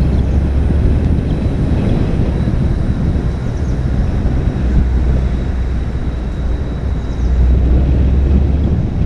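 A vehicle driving along a road: a steady low rumble of engine and road noise, with wind noise over it. It swells slightly near the end.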